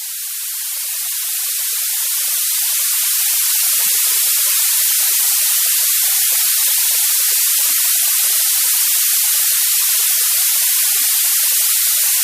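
Steady white-noise hiss, strongest in the high frequencies. It fades in over the first few seconds, then holds level and unchanging.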